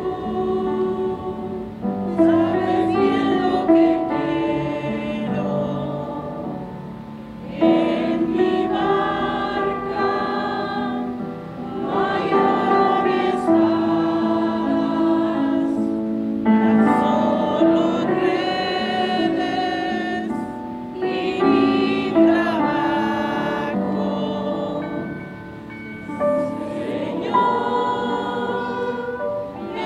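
A group of people singing a song together in phrases of held notes, with short breaks between the phrases.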